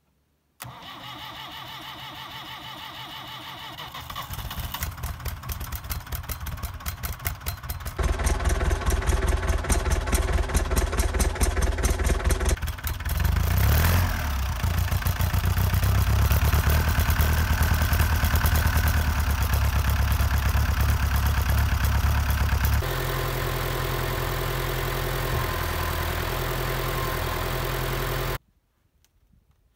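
1977 International Harvester 574's diesel engine on a cold start: it turns over rhythmically, grows louder in steps as it catches, revs briefly, then runs steadily before dropping to a lower, even idle. The sound cuts off abruptly near the end.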